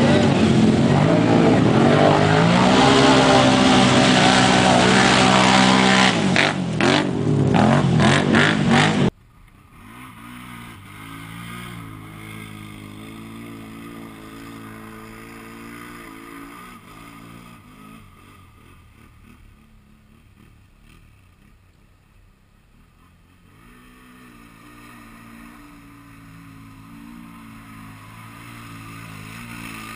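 Can-Am ATV engine revving hard, its pitch rising and falling repeatedly. About nine seconds in there is an abrupt cut to a much quieter recording of an ATV engine running more evenly, which sags and then climbs again near the end.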